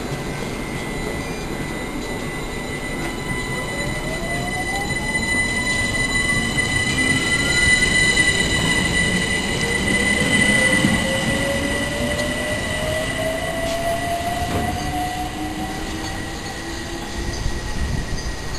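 London Overground Class 378 electric train pulling away and accelerating. Its motors whine in tones that rise in pitch, over a steady high-pitched squeal and the rumble of wheels on rail. It is loudest about halfway through as the cars pass, then fades as the train leaves.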